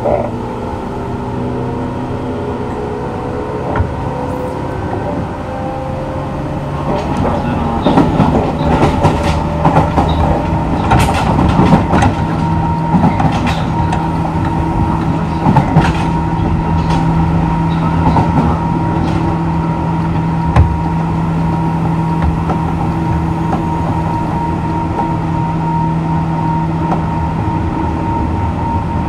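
Onboard running sound of a JR West 201 series chopper-controlled electric train: the motor whine rises in pitch as the train accelerates, then a run of sharp clacks over rail joints and points for about twelve seconds, settling into a steady running hum.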